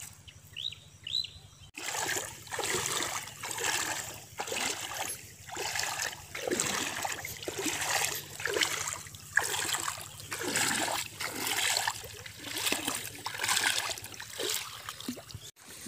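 Legs wading through shallow river water: rhythmic splashing and swishing, a little faster than one stroke a second, beginning abruptly a couple of seconds in. A few faint bird chirps come before it.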